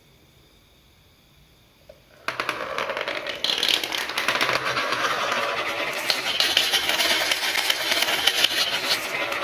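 A batch of marbles released at once on a wooden marble-run track, starting suddenly about two seconds in and clattering and rolling in a dense, continuous rattle of many small clicks.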